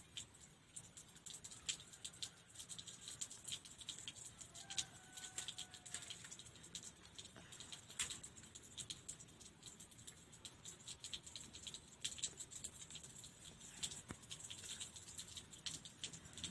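Faint, irregular light clicks and rustling of hands working bamboo pieces while a fence is being put together, with no steady rhythm.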